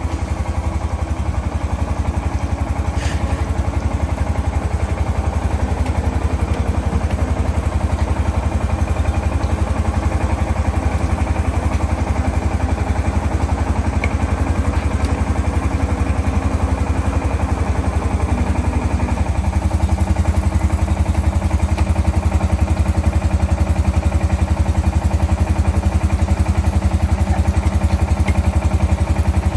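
An engine running steadily with a fast even pulse, getting a little louder about two-thirds of the way through.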